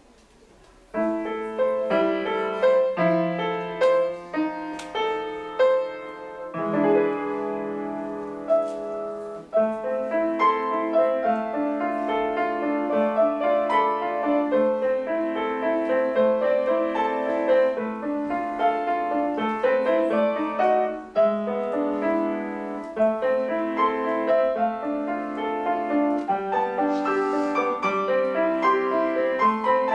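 Grand piano played solo, starting about a second in after a brief quiet, then running on with continuous note patterns.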